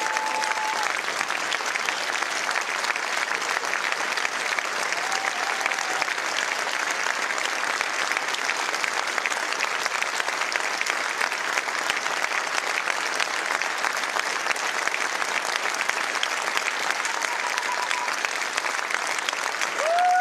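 A large theatre audience applauding in a long, steady ovation, with faint short calls heard now and then over the clapping.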